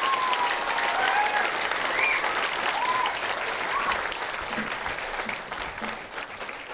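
Theatre audience applauding as the music ends, the last held notes dying away in the first moment; the clapping slowly fades, with a few short calls rising and falling over it.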